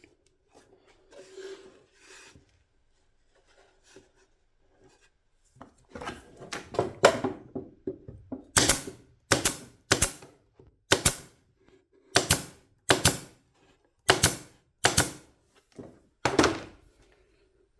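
A series of about a dozen sharp knocks, roughly one every 0.7 seconds, starting about six seconds in after some faint handling noise. The sound is of something being tapped or pressed into place on the workpiece.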